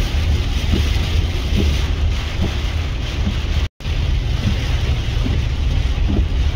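Heavy rain on a moving car's windshield and body, over a steady low rumble of road and wind noise. The sound drops out for an instant just past halfway.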